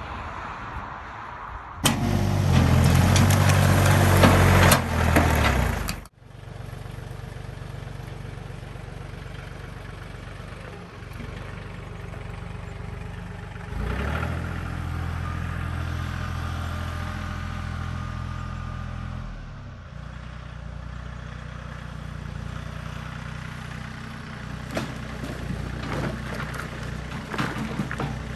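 A vehicle or machine engine running steadily. It is much louder, with a high hiss on top, for a few seconds near the start, then cuts off abruptly and carries on quieter, stepping up in level about halfway through.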